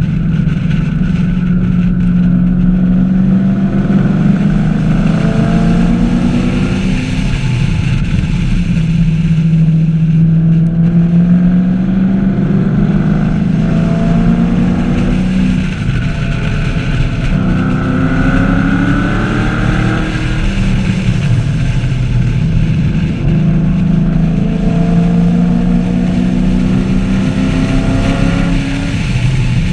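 Chevrolet Camaro 1LE's V8 at full effort on a race track: the engine note climbs repeatedly through the gears and drops off between pulls, over steady wind and road noise.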